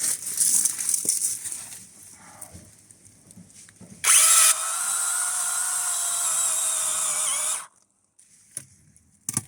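Brushless battery chainsaw starting with a sharp burst about four seconds in, then running with a steady whine that dips slightly in pitch under load before cutting off suddenly after about three and a half seconds. It is cutting the back cut on a tree being felled.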